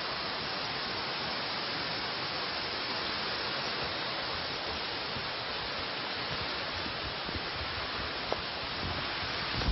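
Steady, even rushing hiss throughout, with a few faint footfalls on leaf litter near the end.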